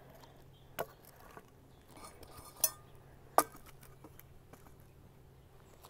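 Cast iron skillet knocking against the bricks and logs as it is set and shifted over a campfire: a few sharp clinks, the loudest about two and a half and three and a half seconds in.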